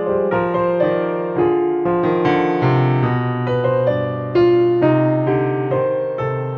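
Background piano music: a flowing run of struck notes over lower held notes.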